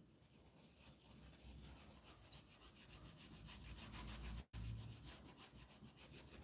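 Paintbrush bristles scrubbing over a taped stencil on an MDF plaque in quick, repeated strokes, several a second, faint. The sound drops out for an instant about two-thirds through.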